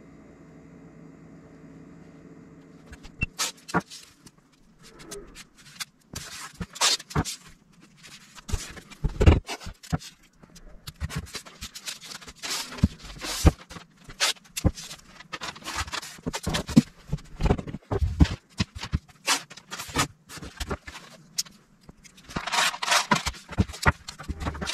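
Irregular sharp clicks, knocks and scrapes, as of hands and tools at work, after a steady low hum for the first three seconds.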